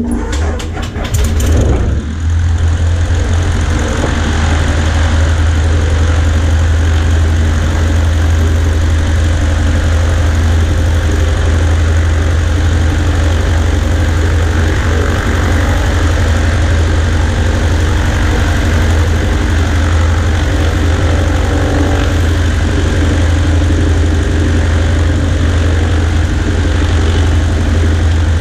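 Cessna 140A's piston engine starting: a couple of seconds of uneven firing, then it catches and runs at a steady idle with a strong low hum.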